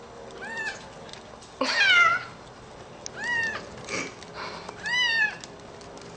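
Young kitten meowing four times, high-pitched mews each arching up and down; the second is the longest and loudest and falls in pitch.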